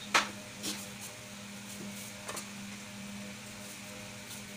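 A steady low kitchen hum, with a sharp knock just after the start and a few lighter clicks and taps as items are handled at the kitchen counter.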